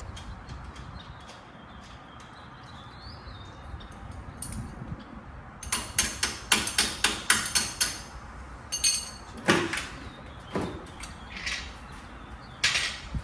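Hammer blows on metal suspension parts: a quiet stretch, then a quick run of about ten sharp strikes, followed by a few single blows.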